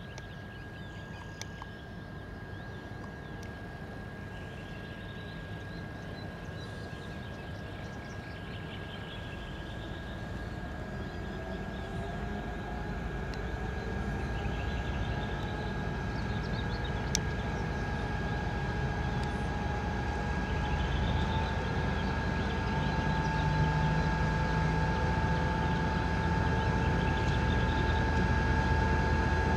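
TEP70BS diesel passenger locomotive running, its engine building up and growing steadily louder, with a deep rumble and a whine that rises about twelve seconds in and then holds steady. A steady high-pitched tone runs underneath.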